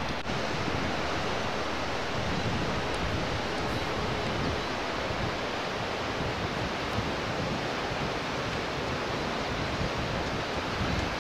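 Steady rushing wind buffeting the microphone on an open mountain trail, with uneven gusts in the low rumble.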